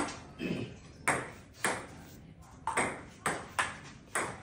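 Table tennis ball clicking off paddles and the table during a rally: a few spaced hits with about a second's pause after the first ones, then quicker back-and-forth hits in the second half.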